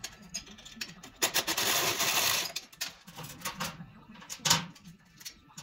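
Mechanic's tools working on a motorcycle in a shop: scattered clicks and metal clanks, a loud steady burst of noise about a second and a half long starting about a second in, and a sharp knock near the end.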